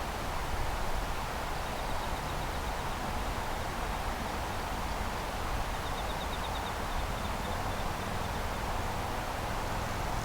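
Steady outdoor background noise, an even hiss over a low rumble. Faint high rapid trills come twice, around two seconds in and again near the middle.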